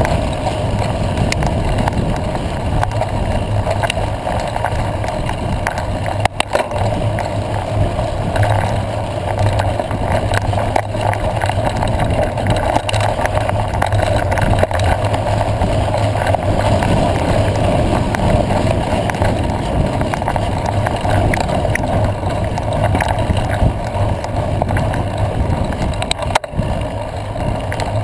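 Mountain bike rolling fast over a dirt road, heard through a bike-mounted camera: steady wind rush on the microphone with a constant rattle and crunch of tyres and frame over the rough ground.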